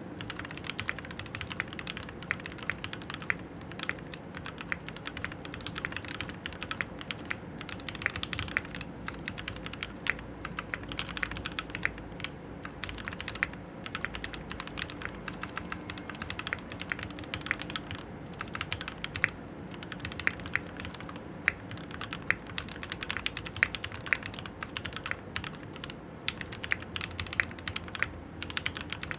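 Typing on a Keychron Q6 mechanical keyboard with stock Gateron G Pro Red linear switches: a quick, uneven stream of keystrokes with brief pauses.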